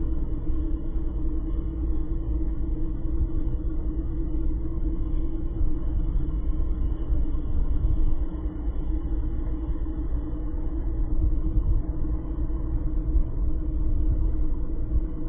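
A vehicle driving along a road: a steady low rumble with a constant hum running underneath.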